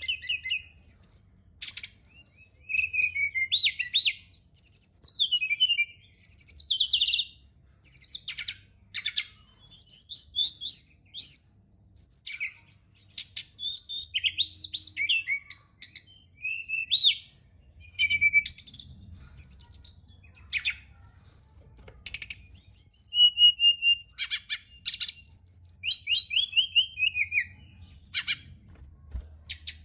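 Brown-chested jungle flycatcher (SRDC) singing: rapid, varied high chirps, trills and sliding whistles in phrases about a second apart, with short pauses. It is a lure recording played to get caged birds of the same kind to sing.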